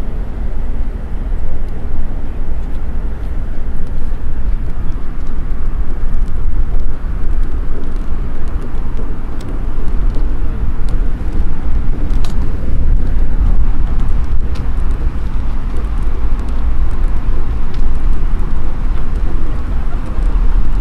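Outdoor city ambience on a walk, dominated by a steady, heavy low rumble, with a few faint clicks.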